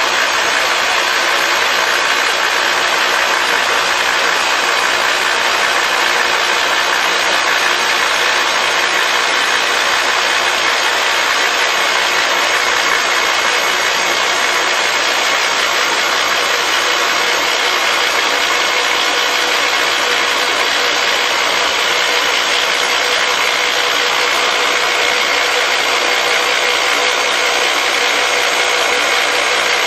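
Rock drill on a face-drilling rig's boom boring into a rock face: a loud, steady, continuous drilling noise.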